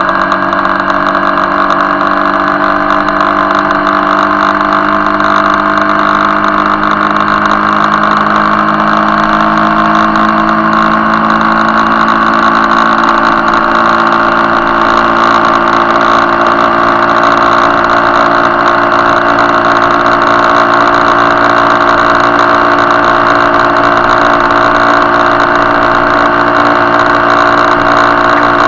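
Motorcycle engine running steadily at cruising speed, its pitch rising gently over the first ten seconds or so and then holding level, over a constant hiss.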